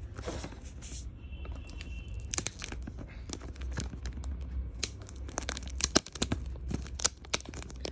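Wrapping on a perfume box being torn open and crinkled by hand: irregular tearing, rustling and crackling of the paper.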